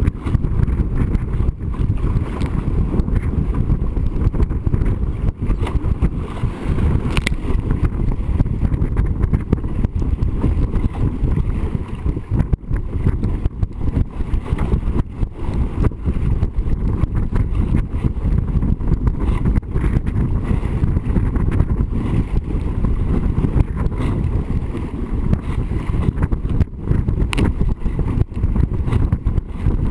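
Wind buffeting the microphone of a camera on a sailing dinghy under way, a loud, steady low rumble, mixed with water rushing past the hull and spray hitting the boat and lens in scattered short knocks.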